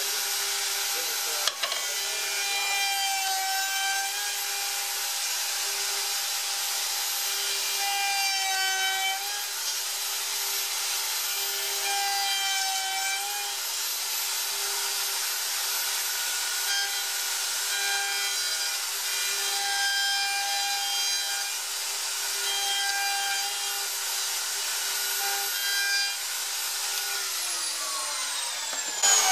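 Plunge router running at full speed, its 8-degree dovetail bit cutting through-dovetail tails in redwood through a template; the whine wavers in pitch several times. Near the end the motor is switched off and winds down with a falling whine.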